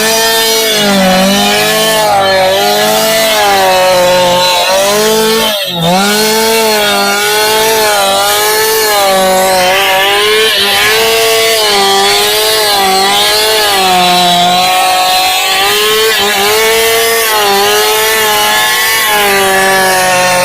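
Chainsaw cutting through timber, its engine running at high speed with the pitch wavering up and down as the load on the chain changes, and a brief dip about five and a half seconds in.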